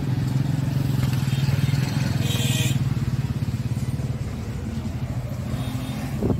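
Massey Ferguson 1035 DI tractor's three-cylinder diesel engine idling steadily, with a brief hiss about two seconds in.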